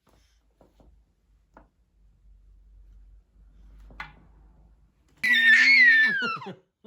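A few faint soft knocks, then about five seconds in a loud high-pitched squeal that falls in pitch over about a second and a half.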